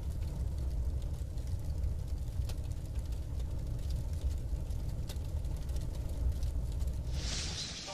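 A low, steady rumbling background drone with faint scattered clicks, swelling into a rising hiss near the end.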